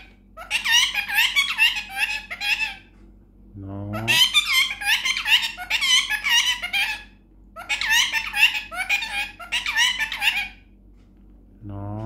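Indian ringneck parakeet chattering in a high, squeaky imitation of speech, in three long runs of quick warbling babble with short pauses between them.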